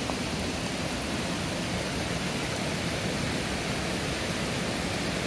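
Steady rushing of a river running through a rocky ravine, with falls close by.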